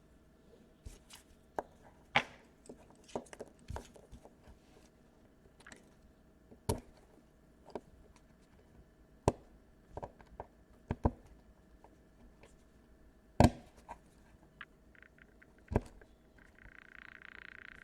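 Small hand tool clicking, tapping and picking against laptop plastic while glue is pried off around the DC power jack and its wires: scattered, irregular sharp ticks and knocks, with a brief rushing scrape near the end.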